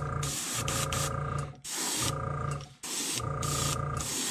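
Airbrush spraying paint in short bursts of about a second each, starting and stopping about four times. Each burst is a hiss with a steady hum and a few held tones under it. The trigger is sticking a little.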